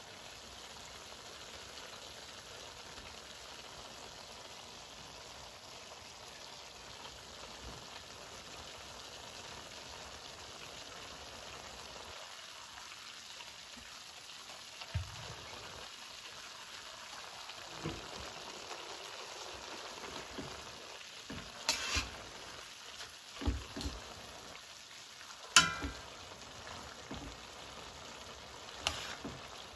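Chicken, vegetables and noodles sizzling steadily in a hot metal pan. In the second half come a few sharp knocks and scrapes as the noodles are tossed through the stir-fry, the loudest a little past the middle.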